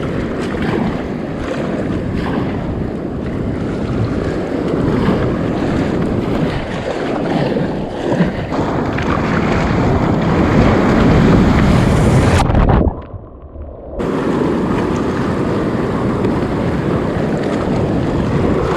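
Wind buffeting the microphone over sea water and breaking surf, a loud steady rush of noise. The sound drops away briefly about thirteen seconds in, then returns.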